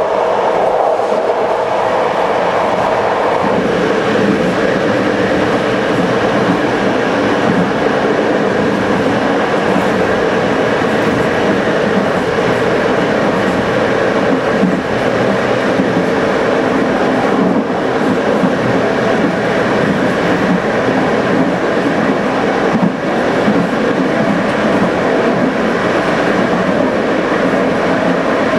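TLK long-distance passenger train running along the line: a steady, loud rolling noise of wheels on rail, with a few short knocks from the track.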